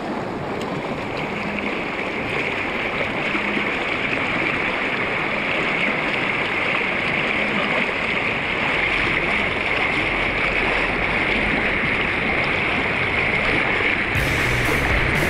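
Fast river water rushing over rocks in shallow rapids: a steady, even hiss and wash close to the microphone.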